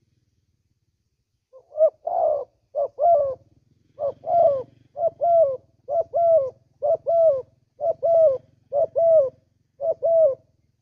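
Spotted dove (tekukur) cooing close by: after a second and a half of silence, a steady series of short double coos falling in pitch, about one a second.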